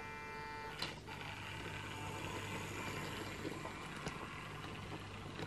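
Faint whir of a Hornby OO gauge Terrier model locomotive's small electric motor and gearing as it crawls at low power with a goods train, with small ticks from the wheels on the track. A thin whine in the first second gives way to a click or two, then the whir runs on steadily.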